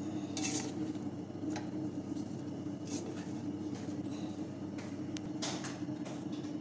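Wooden spoon stirring meat and chopped greens in a stainless steel pot, with a few short scrapes against the metal, over a steady low hum.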